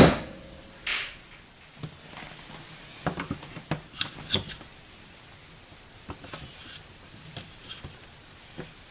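Handling sounds of a dishwasher's bottom compartment cover being worked loose after its screws are out: scattered light clicks and taps, with a short scrape about a second in and a cluster of small knocks a few seconds later.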